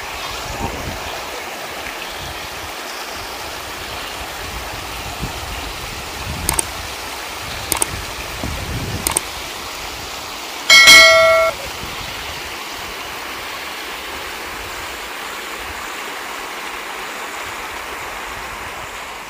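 Shallow stream running over rocks in a steady rush. A few sharp clicks come roughly a third of the way in. Near the middle a loud chime with several pitches rings for under a second, the loudest thing heard, from an added subscribe-button sound effect.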